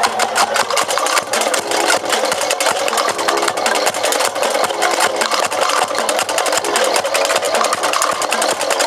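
Street-dance percussion band drumming in a fast, steady rhythm of rapid strokes, with some pitched tones underneath.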